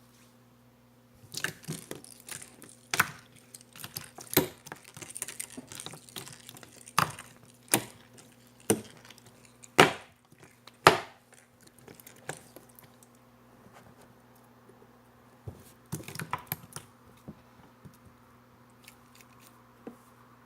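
Jiggly slime being squished and pressed by hand, making irregular wet clicks, crackles and pops. The two loudest pops come about ten and eleven seconds in, then a pause before a last short cluster.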